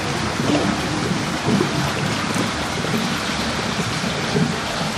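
Heavy rain and running rainwater, a steady rushing hiss.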